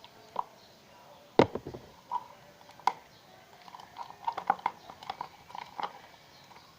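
Homemade glue-and-detergent slime being worked by hand: scattered sticky clicks and squelches, with one sharp snap about a second and a half in and a quick run of clicks in the second half.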